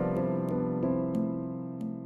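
Background music: a keyboard tune of single notes over held chords, a new note every half second or so.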